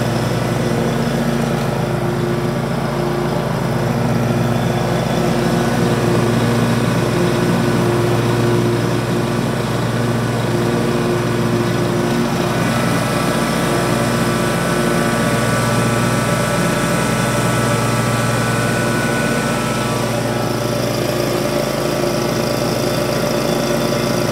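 John Deere S240 riding mower's engine running steadily at a constant speed, with no revving.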